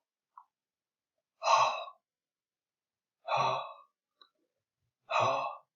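A man's voice breathing out the voiceless glottal fricative /h/ three times, each a breathy "hhh" about half a second long, as a pronunciation demonstration of the phonetic symbol h.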